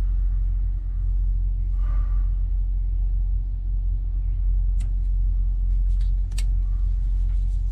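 Steady low rumble, with a few sharp clicks about five and six and a half seconds in as solar-panel MC4 cable connectors are handled and pushed together.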